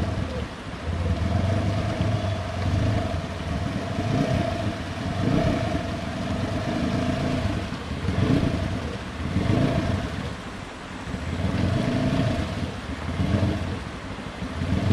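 Polaris RZR S4 1000 side-by-side engine revving in repeated bursts, its wheels churning the water as it tries to climb off a rock it is hung up on in a riverbed.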